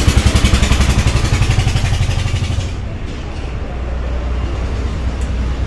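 A motorcycle engine running close by with an even, pulsing beat. It drops away about two and a half seconds in, leaving a low steady traffic rumble.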